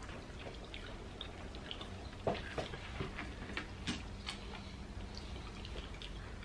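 Close-up eating sounds: scattered wet clicks and smacks from chewing corn on the cob and peeling a boiled shrimp by hand, over a low steady hum. The sharpest click comes a little over two seconds in.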